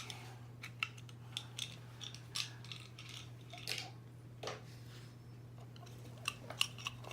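Plastic toy train pieces being handled, giving irregular light clicks and taps, over a faint steady hum.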